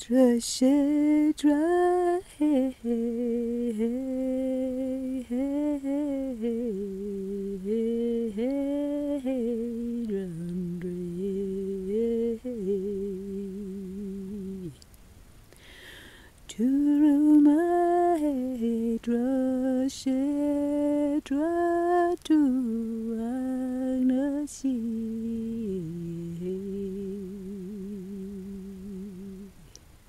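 A person humming a slow, wordless melody in two long phrases, with a short pause and a breath about halfway through.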